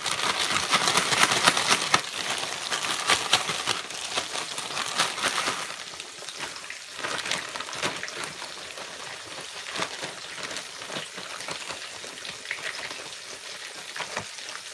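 Flour-coated catfish pieces deep-frying in hot grease: steady sizzling and crackling, louder over the first several seconds, with plastic bags rustling as the fish is handled.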